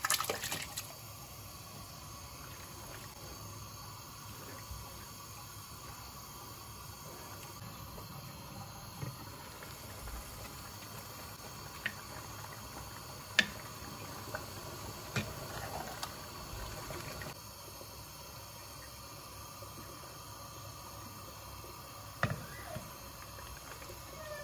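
A pot of broth simmering on a gas hob while a wooden spoon stirs it. A thick mixture slops in as it is tipped into the pot at the start, and the spoon knocks sharply against the pot a few times.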